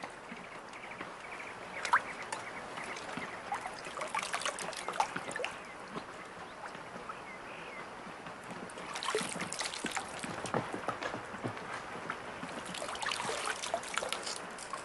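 River water splashing and trickling in irregular spells, with small sharp clicks and knocks among the splashes.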